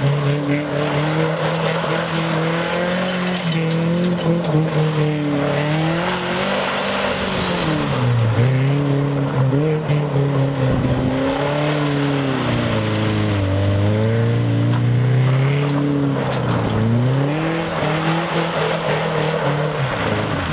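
Chopped-top Nissan Sentra's four-cylinder engine revving up and down over and over as the car spins donuts on loose dirt, its pitch dropping low a few times between climbs, over a steady noisy hiss.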